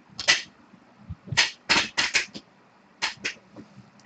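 Trading cards being handled and tapped down onto a stack on a table: a string of short, sharp clicks and taps in uneven clusters, about eight in all.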